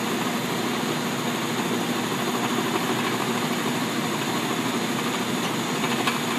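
Milwaukee cordless drill running steadily under load, turning a 1¾-inch bit through the metal wall of an explosion-proof junction box, with a steady low hum under a dense grinding hiss.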